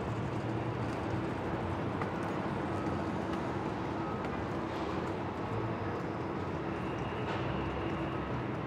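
City street ambience: a steady wash of traffic noise with a faint hum running under it.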